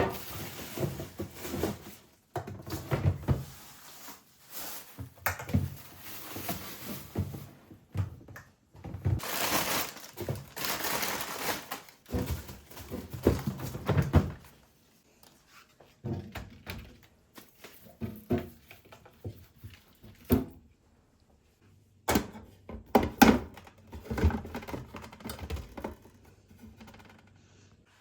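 Household items being handled and set down, a scattered series of thunks and knocks with stretches of rustling, cut off briefly now and then.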